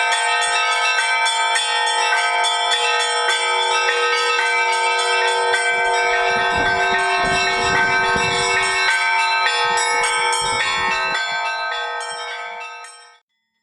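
Several church bells ringing together in a fast peal, strike after strike, the sound fading and then stopping just before the end.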